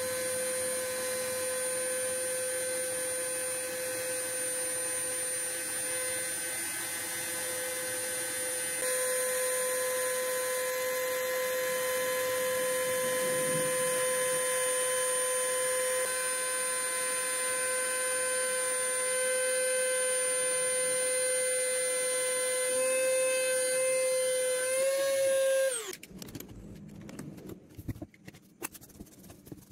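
CNC router spindle running at a steady high-pitched whine while its engraving bit mills clear 5 mm acrylic sheet. Near the end the whine lifts slightly, then falls away quickly as the spindle stops, leaving only faint irregular clicks.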